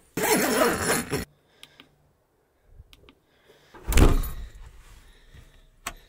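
Rustling as gear and fabric are handled for about a second, a few small clicks, then a single heavy thump about four seconds in that dies away, followed by a last click near the end.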